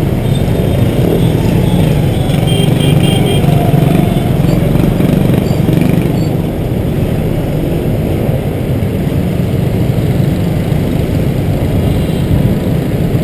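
Steady, loud traffic noise of a scooter ride through dense motorbike traffic: the scooter's own engine running, mixed with the engines of the motorbikes around it.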